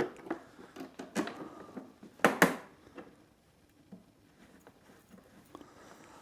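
Short clicks and knocks of small hardware being handled while motorcycle windscreen bolts are fitted by hand, the loudest a quick pair of clacks a little over two seconds in, then a few faint ticks.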